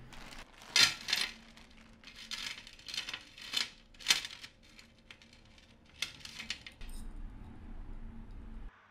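A pile of costume jewelry (beaded bracelets, metal chains and bangles) rattling and clinking as it is tipped out of a plastic bag and picked through by hand on a hard table. Near the end the clinking gives way to a low steady hum that cuts off suddenly.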